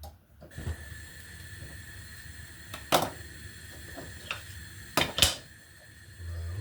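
Gas hob burner alight and running with a steady hiss, just lit, broken by three sharp knocks, one about three seconds in and two close together near five seconds.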